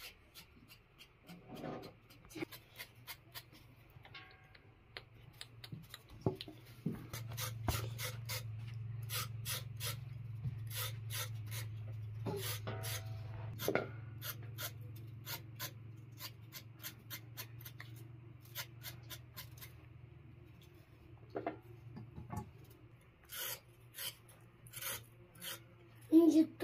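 Small knives scraping the skins off raw potatoes and carrots in a string of short rasping strokes. A low steady hum runs underneath through the middle of the stretch.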